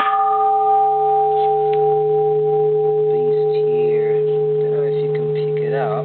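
Bronze Japanese Buddhist temple bell struck once, ringing on in a steady blend of several tones, a low hum beneath clearer higher notes. The highest note dies away within about a second while the lower ones sustain and fade only slowly.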